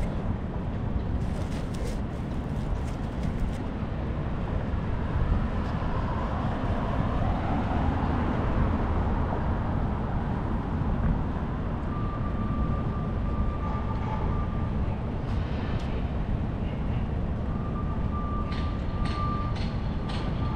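Steady wind rumble on the microphone from riding a bicycle, mixed with city street traffic. In the second half a steady high-pitched tone sounds twice, the second time with a few sharp clicks.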